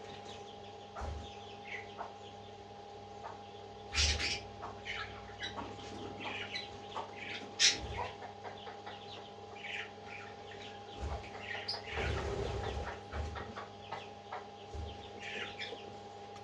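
Baby parrot chicks making short, scattered chirping and begging calls, a couple of them sharper and louder, over a steady hum.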